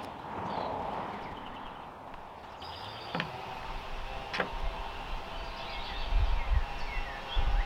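Two sharp clicks a little over a second apart as screws and the plastic guard are handled at the string trimmer's head, over a steady outdoor background. Near the end, wind gusts rumble on the microphone and birds chirp faintly.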